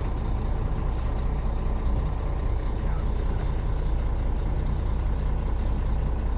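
Old Freightliner grain truck's diesel engine running steadily at a constant pitch.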